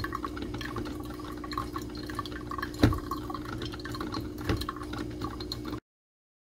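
Drip coffee maker brewing: coffee dripping and spattering into the glass carafe over a steady low hum, with two sharper ticks partway through. The sound cuts off suddenly near the end.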